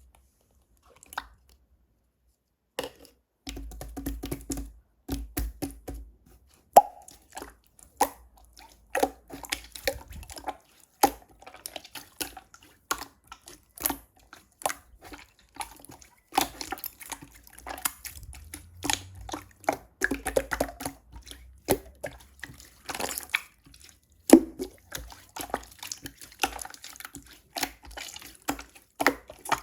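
Slime being squeezed and poked by hand, giving a dense, irregular run of wet clicks and pops that starts about three seconds in.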